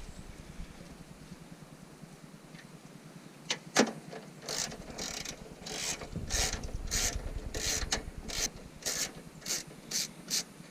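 Hand ratchet wrench turning a bolt out: two sharp knocks about three and a half seconds in, then a run of quick ratcheting strokes, about two a second.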